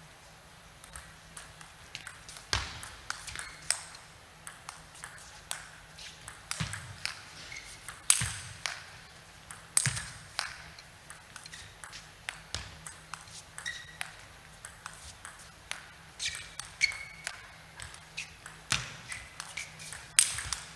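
A long table tennis rally: the ball knocks back and forth off the rackets and the table in an uneven run of sharp ticks, often several a second.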